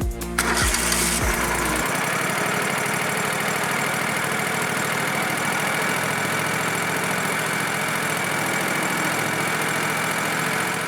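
Sawmill engine starting about half a second in, then running steadily.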